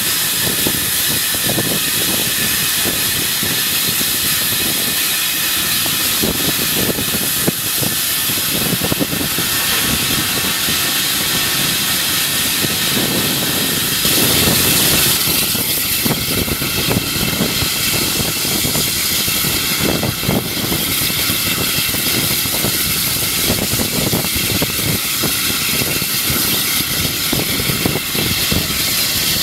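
Peckett 0-4-0 tank steam locomotive running along the line, heard from its footplate: a steady, loud mix of running noise and steam hiss.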